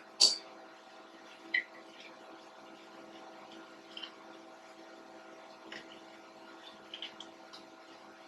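Scattered sharp knocks and clinks of hand work on the machine, the loudest just after the start and a few fainter ones spread through, over a steady background hum.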